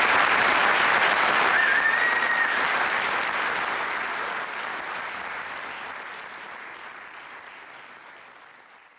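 Studio audience applauding at the end of a cabaret sketch, fading out steadily to silence, with a brief high steady tone about two seconds in.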